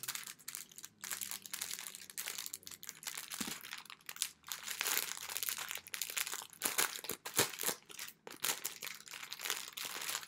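Thin plastic packaging bag crinkling and crackling irregularly as it is handled and opened by hand.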